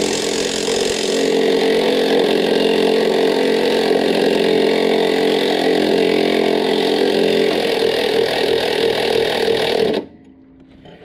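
Makita 18-volt cordless power tool driving a socket on a wobble extension, running steadily for about ten seconds and then stopping suddenly as it works loose a Jeep XJ engine-mount bolt.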